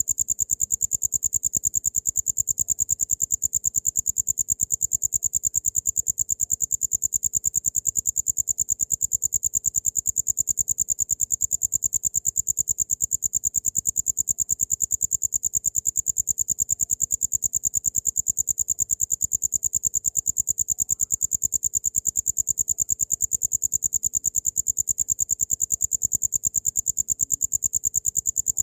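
Cricket chirping: a high-pitched, rapid, evenly pulsing song that goes on without a break.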